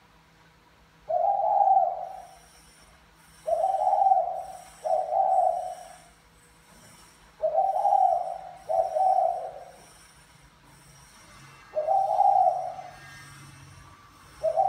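Caged male spotted dove cooing in a calling bout: about seven low coo phrases a couple of seconds apart, twice coming in quick pairs. It is the 'thúc mái' call, the cooing a male uses to court a hen. Faint high chirps of other small birds sound behind it.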